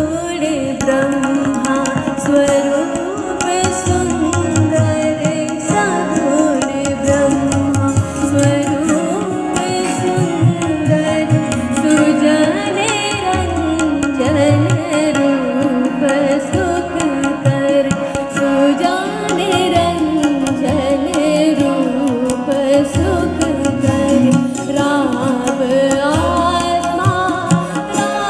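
Live Indian devotional song (bhajan): a voice singing an ornamented, sliding melody over harmonium, with tabla strokes keeping the rhythm.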